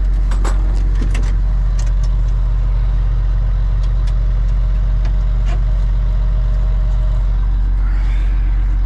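A heavy vehicle's engine idling steadily, heard from inside the cab, with a few sharp clicks and knocks in the first two seconds.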